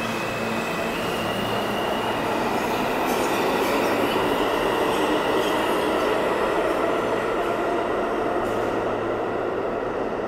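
New York City subway R train pulling out of the station on the far track. The wheels and running gear make a rumbling rush over a steady high whine. It swells as the cars speed past, then fades over the last few seconds as the rear car clears.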